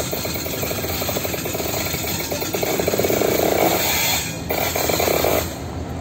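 Diesel freight locomotives, a KCSM GP22ECO leading a GP38-2, passing close by with a rapid, rattling clatter that grows loudest about three to four seconds in.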